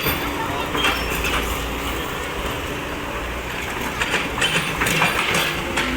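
Excavator diesel engine running steadily with a held hydraulic whine. Sharp knocks and cracks come now and then as the machine pushes against tree branches, most of them bunched in the second half.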